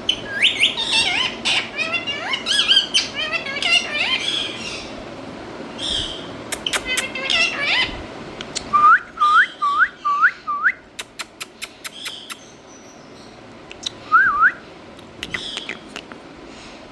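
Indian ringneck parrot chattering and whistling: a run of quick warbling calls through the first half, then five short rising whistles, a string of sharp clicks, and a short double whistle near the end.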